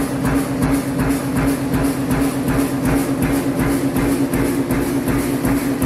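ATM-Elmali perforation press punching holes in a steel sheet, its punch striking in a rapid, even rhythm of about three to four strokes a second over the steady hum of the running press.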